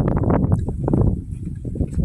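Footsteps crunching through snow in a quick, uneven run, easing off near the end.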